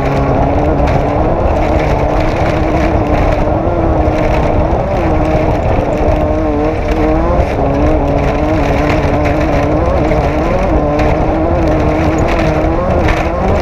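Off-road race vehicle's engine running hard under load, its pitch wavering up and down constantly with the throttle, over a steady heavy rumble of tyres and terrain.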